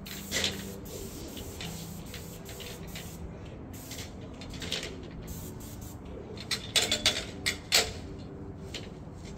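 Paint sprayer hissing in short bursts as its trigger is pulled and released, with a few sharp clacks, over a steady low hum.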